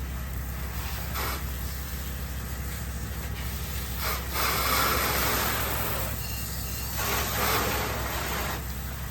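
Soft-wash spraying: a spray nozzle hisses in two spells of about two seconds each, over a steady low machine hum.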